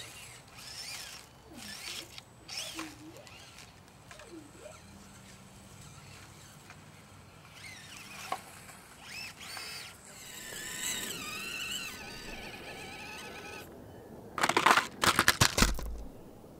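Axial SCX24 mini RC crawler climbing over dry leaves and tumbling off, its small electric motor whining, with birds chirping. A run of loud crunching, rustling bursts comes near the end.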